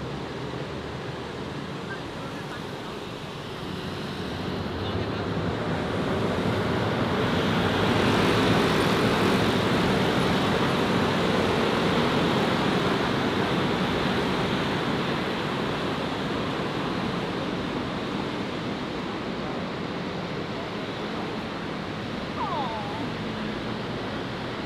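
Steady road traffic noise, a rush of passing vehicles that builds over the first few seconds, is loudest in the middle, and slowly eases toward the end.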